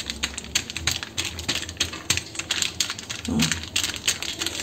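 Crinkling and crackling of a baking sheet folded over balls of rice dough as they are pressed flat into thattai, a fast irregular patter of small clicks.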